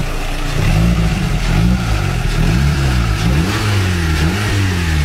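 Car engine revving repeatedly, its pitch rising and falling again and again, as the car moves off.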